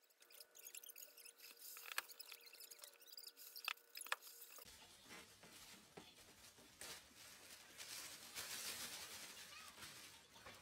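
Faint handling noises: a few sharp clicks in the first four seconds, then soft rustling of a plastic bag, loudest near the end.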